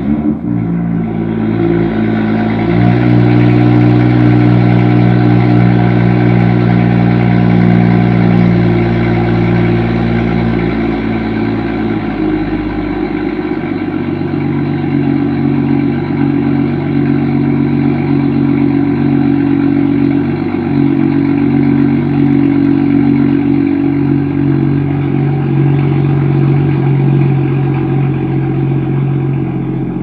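BMW M2's turbocharged straight-six idling through its quad exhaust, a steady engine note whose tone shifts slightly about 13 seconds in.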